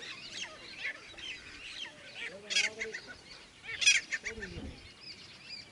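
Grey francolins calling: two loud, harsh calls about two and a half and four seconds in, the second followed by a few shorter notes, among softer chirps. A low wavering tone comes and goes underneath.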